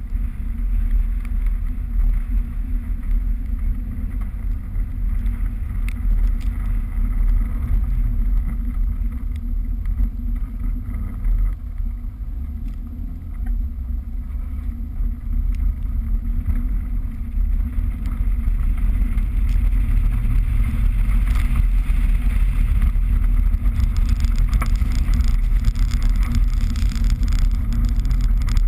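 A Rover 214 hatchback's engine running while the car slides across a snowy field, heard through a heavy low rumble of wind on a body-mounted microphone. It gets louder about two-thirds of the way in, and near the end snow spray hisses against the door.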